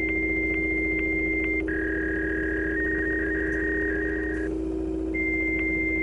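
Electronic telephone-line and modem-style tones over a steady low drone. A high steady tone ticks about twice a second. From about one and a half seconds in it gives way to a pair of slightly lower fluttering tones, like a modem connecting, which stop near four and a half seconds. The high ticking tone comes back near the end.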